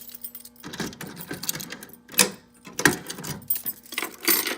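Keys jangling and metal clattering as they are handled, in irregular spurts starting about half a second in, over a faint steady hum.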